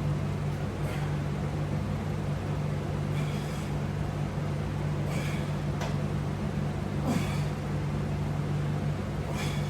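Steady low hum in a small room, with four faint short rushes of noise spaced about two seconds apart.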